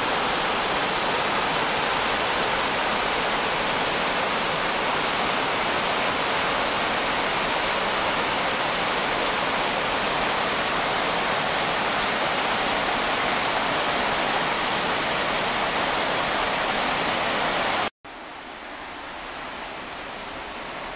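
Rushing white water of a rainforest creek cascading over boulders, a steady loud rush. About three seconds before the end it cuts off abruptly and a much quieter, softer hiss follows.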